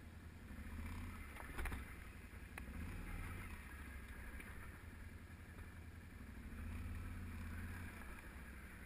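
Can-Am ATV's V-twin engine running at low speed over loose rock scree, its low drone rising and falling, with a short knock about a second and a half in.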